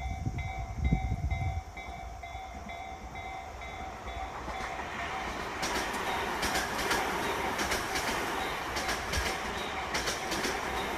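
Japanese level-crossing warning bell ringing in a steady, evenly repeating pattern. About halfway through, an electric commuter train's rumble builds over the bell and its wheels clack over the rail joints as it passes the crossing.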